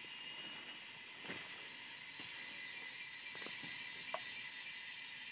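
Steady high-pitched drone of forest insects, with a few faint clicks and one sharper click about four seconds in.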